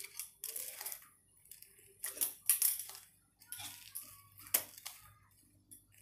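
Tech Deck fingerboard clacking and scraping against a small plastic obstacle and a play mat, in a series of short, irregular bursts as it is pushed and flicked.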